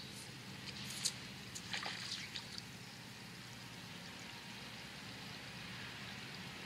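River water running and trickling steadily, with a few brief sharp sounds about one to two and a half seconds in.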